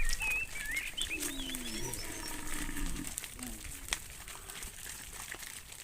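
A cow mooing once: a low call of about two and a half seconds that bends a little in pitch.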